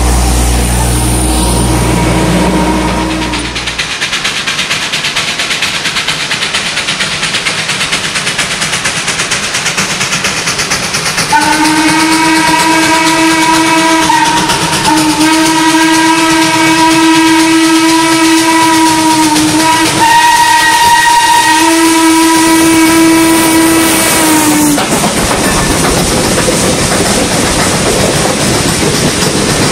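Steam locomotive ex-Tremont & Gulf #30 approaching with its steam running, then sounding its hooter whistle, a deep chord-like hoot, in four blasts: long, long, short, long. That is the grade-crossing signal. Its passenger cars then roll past with wheels clicking over the rail joints. A low steady hum is heard in the first few seconds.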